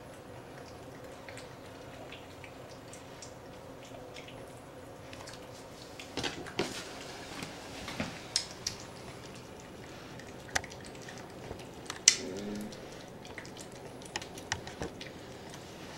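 A very heavy domestic cat eating wet food from a plate: irregular wet smacking and chewing clicks. They come thicker and louder after about six seconds, with one sharp click about twelve seconds in.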